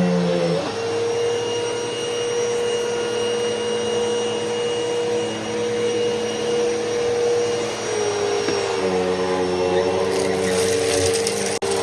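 Hoover Elite Rewind upright vacuum cleaner running steadily with a motor hum whose pitch shifts slightly a moment in and again about eight seconds in as its load changes. A crackly rattle comes through about ten seconds in, and the sound cuts out for an instant just before the end.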